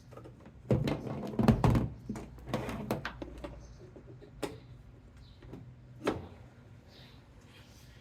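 Handling noises: a cluster of knocks and clatter in the first two seconds, more about three seconds in, then two single sharp knocks about four and a half and six seconds in.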